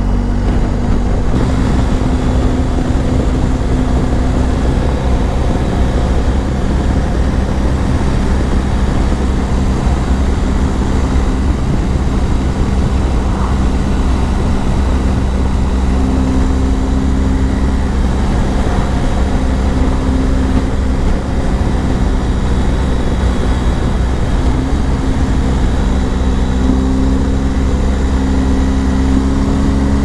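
BMW GS motorcycle's boxer-twin engine running at a steady road speed, its pitch shifting slightly now and then, under a constant rush of wind and road noise.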